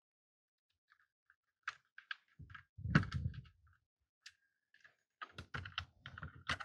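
Small jigsaw parts being handled and fitted during reassembly: scattered light clicks and knocks of plastic and metal pieces, with a heavier knock about three seconds in and a quick run of clicks near the end.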